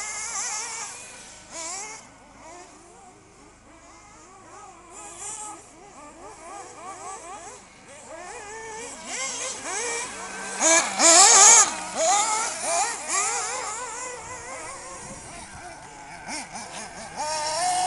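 Several 1/8-scale off-road RC cars' small two-stroke nitro engines revving up and down as they race, many high whining pitches rising and falling over one another. They are loudest a little past the middle and swell again near the end.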